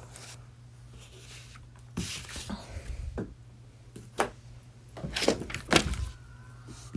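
Handling noises: rustling and several sharp knocks and taps, the loudest a little past the middle, over a steady low hum.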